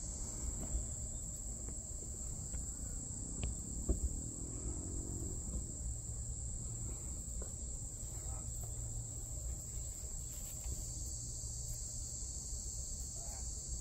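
Steady, high-pitched chorus of insects droning without a break over a low rumble, with a brief knock about four seconds in.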